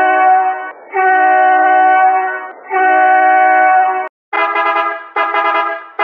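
Edited bus horn sound effect: three long, steady honks, then after a short break about four seconds in, a choppier run of short, brighter honks.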